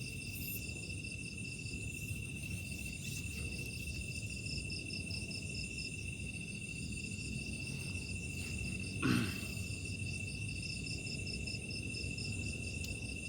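Night insect chorus: crickets trilling steadily in several high, continuous and rapidly pulsing tones. About nine seconds in, a short call falls in pitch.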